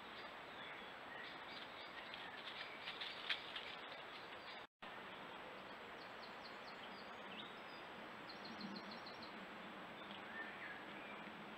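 Faint wild birdsong over steady hiss: scattered short high chirps and a few soft clicks, a brief dropout about five seconds in, then quick high trills of rapidly repeated notes, twice.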